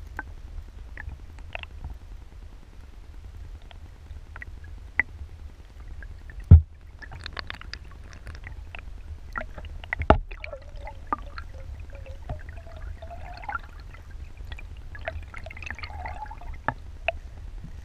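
Water heard through a submerged camera: a steady low rumble with scattered clicks, two sharp knocks about six and a half and ten seconds in, and a wavering gurgle in the second half.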